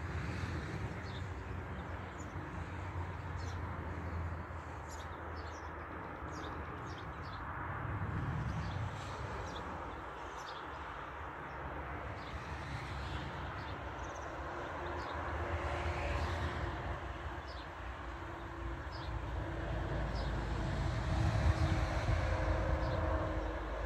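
Outdoor ambience: a low, distant rumble that swells and fades several times, with a faint engine hum coming in about halfway through and short bird chirps scattered throughout.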